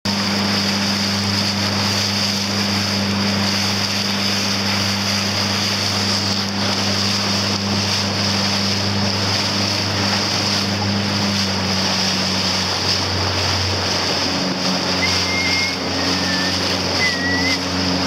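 A motorboat engine running at a steady hum, with water rushing and wind noise over it. The engine note shifts about two-thirds of the way through, and a few short, high chirps come near the end.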